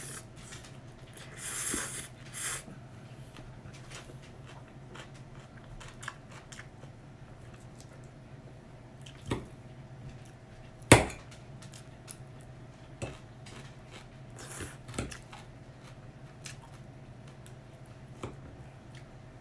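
A person eating noodles with a fork from a plate: a couple of slurps about two seconds in, then scattered clinks and scrapes of the fork on the plate, the loudest a sharp clink near the middle. A steady low hum runs underneath.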